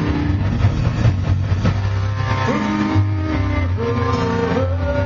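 Live heavy metal band playing loud, with electric guitars and a drum kit. Long held notes that bend in pitch come in about halfway through.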